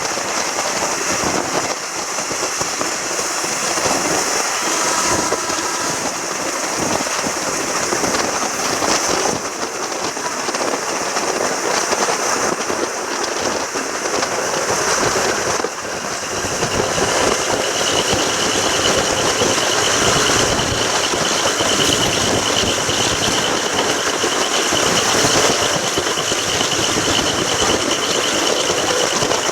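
Train running, a continuous rumble and rattle with rapid knocks. A steady high-pitched tone joins about halfway through and holds.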